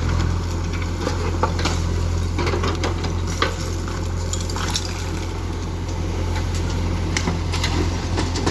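Diesel engine running steadily with a low hum, under scattered clattering and scraping as a backhoe loader loads waste.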